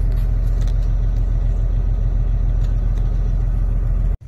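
Semi truck's diesel engine idling with a steady low hum, heard from inside the cab. It cuts off abruptly near the end.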